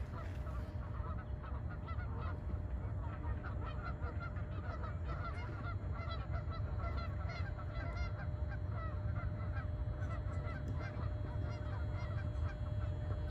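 A flock of geese honking continually, many short overlapping calls, over a steady low rumble.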